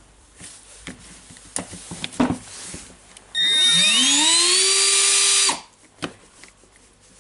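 Replacement Aliexpress brushed DC motor in an opened Milwaukee M12 BDD drill, test-run on the battery. It spins up with a quickly rising whine, runs at steady speed for about two seconds and cuts off suddenly when the trigger is released. It runs normally, so the drill's controller accepts the new motor. A few light plastic clicks of handling come before and after.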